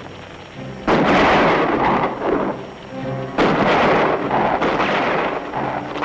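Several loud gunshots with long echoing tails from a western gunfight, the first about a second in, over background music.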